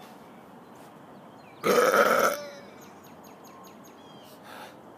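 A man burping once, loud and rough, for under a second, about one and a half seconds in.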